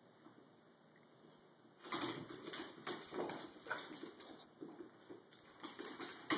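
Cavalier King Charles Spaniels scuffling in play, their claws clicking and scrabbling on a hardwood and tile floor. It is quiet at first; about two seconds in, a quick, irregular run of clicks and scuffles begins.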